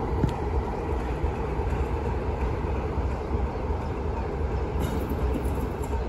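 Class 33 diesel locomotive's Sulzer eight-cylinder engine running with a steady low rumble as the locomotive draws slowly toward the listener.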